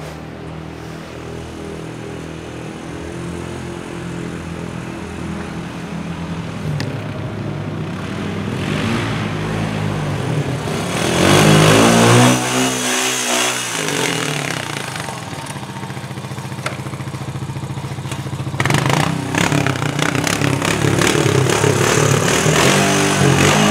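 Snow-plow ATV engine running and revving, growing louder as it comes up and passes close about halfway through, then running loud and close again near the end.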